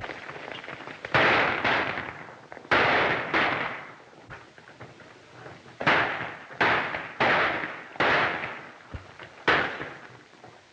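A burst of gunfire: about nine sharp shots at irregular intervals, some close together and some a second or more apart, each ringing out briefly before the next.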